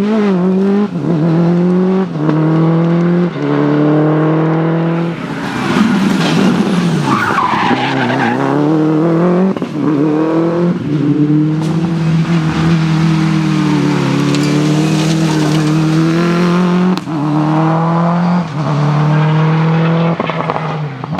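Subaru Impreza rally car's turbocharged flat-four engine accelerating hard through the gears, its pitch climbing and dropping back at each quick upshift, with a steadier stretch at high revs midway. Loud throughout.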